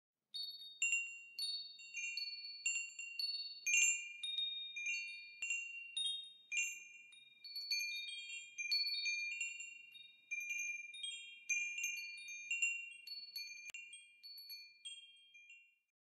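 Tubular wind chime struck again and again at an uneven pace, several clear high notes ringing on and overlapping. It stops just before the end.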